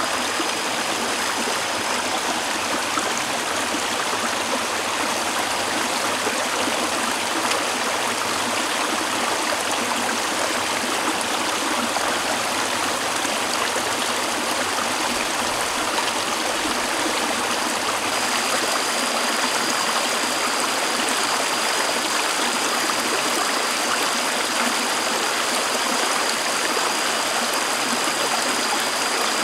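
Shallow rocky stream flowing steadily over stones, a constant rushing babble. A thin high steady tone sits over it briefly at the start and again from about two-thirds of the way through.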